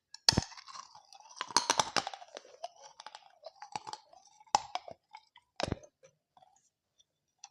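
Biting and chewing a mouthful of dahi papdi chaat, the crisp fried papdi wafers crunching. There is a sharp crunch just after the start, a dense run of crunches about one and a half to two seconds in, then softer chewing with two more crunches at about four and a half and almost six seconds.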